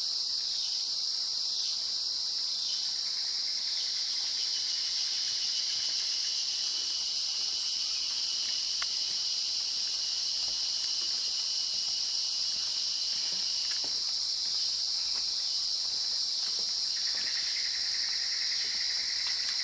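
Steady, high-pitched chorus of rainforest insects: a continuous buzzing trill, joined near the end by a lower, rapidly pulsing insect call.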